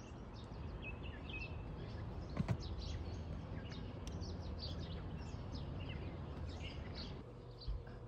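Small songbirds chirping, short high calls scattered throughout, over a steady low background rumble. One sharp knock about two and a half seconds in.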